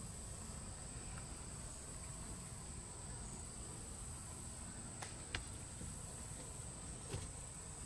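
Insects droning steadily at a high pitch in the bankside vegetation, with a few faint clicks about five seconds in and again near the end.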